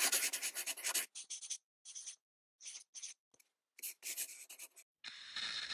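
Pen nib scratching on paper in short writing strokes: a quick run of scribbling at the start, then separate strokes with gaps, and another run of scribbling near four seconds. Near the end a soft, steady hiss comes in.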